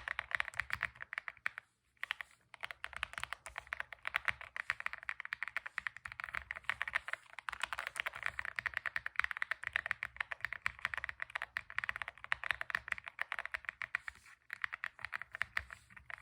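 Fast typing on a Lucky65 v2 aluminium-cased 65% mechanical keyboard: a rapid, steady stream of key clacks, with a short pause about two seconds in and another brief one near the end.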